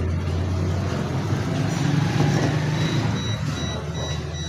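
A motor vehicle passing, a low rumble that swells and eases off, with a short high beep repeating in the second half.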